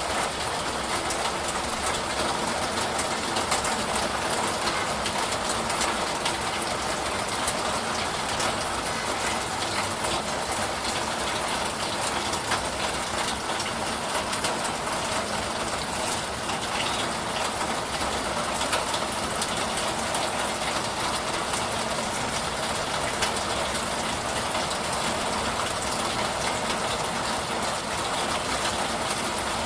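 Steady rain: an even hiss with a dense patter of small drop ticks.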